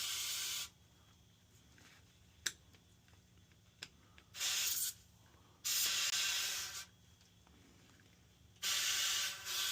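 Mold-control spray being sprayed in separate bursts of about a second each into a drain tube, three in a row after one ends just as it begins, with a single click between them.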